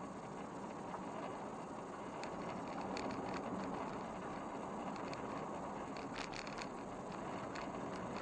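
Car driving along a country road, heard from inside: steady tyre and road noise with a few small rattles and clicks.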